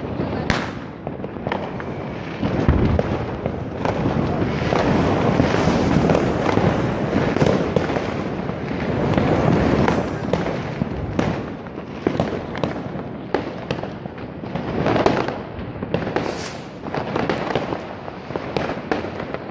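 Fireworks going off: a continuous rush of crackling and popping, dense with short sharp cracks, swelling louder now and then.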